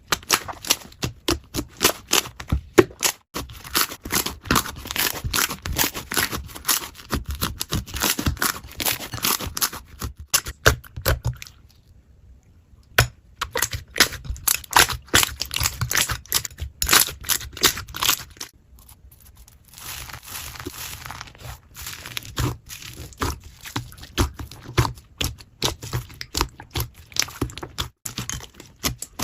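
Slime being squeezed, stretched and poked by hand: a rapid, irregular run of sticky clicks, pops and crackles, broken by a short pause about twelve seconds in.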